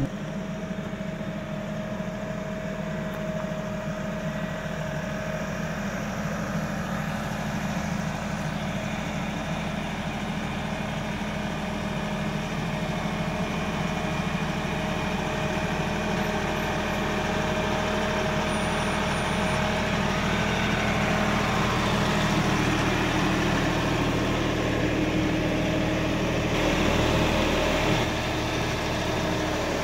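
Kioti NX6010 compact tractor's diesel engine running steadily at low speed while carrying a heavy load, growing gradually louder.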